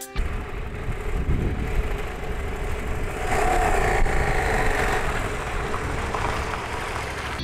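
Husqvarna Norden 901 parallel-twin motorcycle engine running as the bike is ridden, mixed with a steady rush of wind on the handlebar camera.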